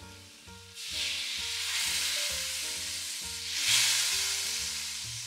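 Coconut milk sizzling as it is poured into a hot wok onto fried red curry paste. The sizzle starts suddenly about a second in, swells again past the middle, then fades. Soft background music runs underneath.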